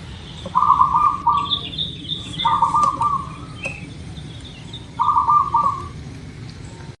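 Zebra dove (perkutut) cooing: three rapid, staccato cooing phrases a couple of seconds apart. Small birds chirp higher and fainter in the background.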